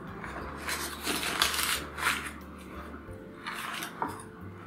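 Baking paper crinkling and rustling in several short bursts as hands press a sheet of shortcrust pastry on its paper into a glass quiche dish.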